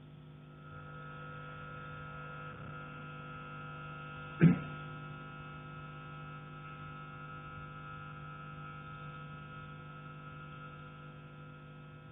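A single loud knock from the attic overhead, about four and a half seconds in, one of the knocks that recur there every 40 to 60 seconds, over a steady hum.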